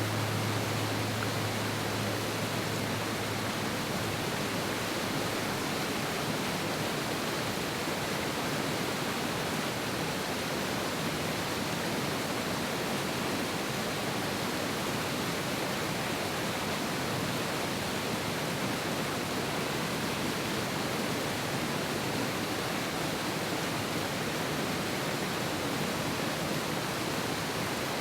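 Mountain river rushing steadily, a dense even roar of fast-flowing water. A low bell tone dies away about three seconds in.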